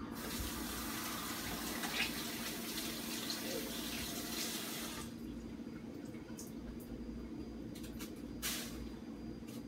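Kitchen tap running into the sink, cut off abruptly about halfway through, followed by a few light knocks.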